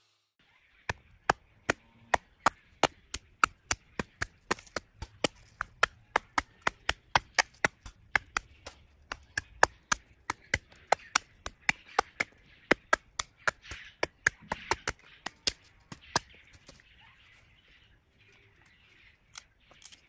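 Sharp cracking knocks in a quick, even series of about three a second for some fifteen seconds, then a few scattered ones: green walnut husks being cracked open.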